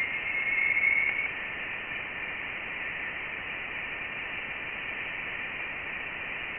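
Sonified Voyager 1 Plasma Wave Science data: a steady static hiss with a band of higher whistling tones, and a brief clearer tone about half a second in. The tone is the electron plasma oscillation of interstellar plasma, whose pitch marks the plasma's density.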